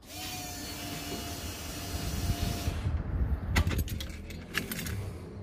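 Nissan VK45DE V8 being turned over by its starter motor without firing: a steady whine over a low, uneven churning, priming the fuel system and checking for leaks. Keys jingle at the ignition about three and a half seconds in.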